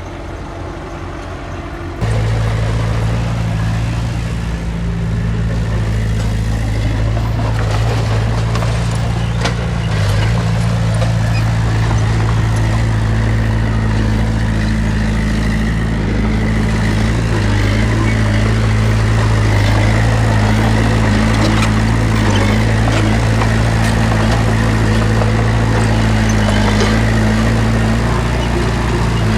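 Heavy machinery diesel engine running steadily under load, suddenly louder about two seconds in, with a few faint knocks.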